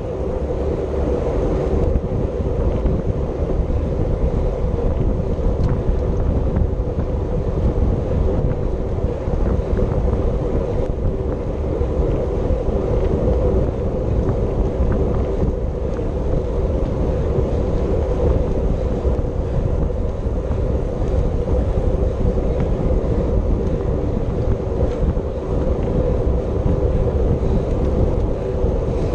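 Wind rushing over the microphone of a bicycle rider's camera at race speed, loud and unbroken, with a steady hum underneath.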